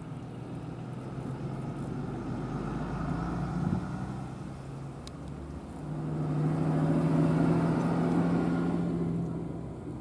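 Motor vehicle engine noise, a low hum that swells and fades twice, loudest from about six to nine and a half seconds in, as traffic passes. A single sharp click about five seconds in.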